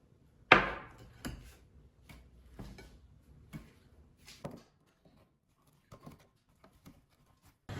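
A series of sharp knocks and clatters, the loudest about half a second in, then roughly one a second, growing fainter to light taps in the second half.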